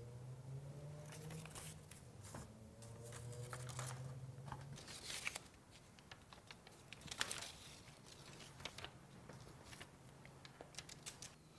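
Release liner being peeled off mastic sealant tape on a metal roof panel: faint, irregular crinkling and tearing with scattered small crackles.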